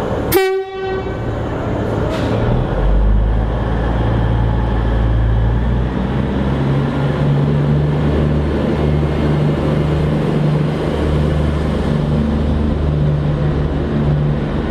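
V/Line VLocity diesel multiple unit sounding one short toot on its horn, then its diesel engines throttling up to a low steady drone as the train pulls away.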